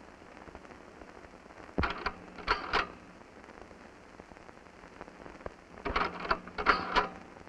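Hiss and crackle of an old film soundtrack, with two short clusters of loud noisy bursts about two seconds in and again about six seconds in.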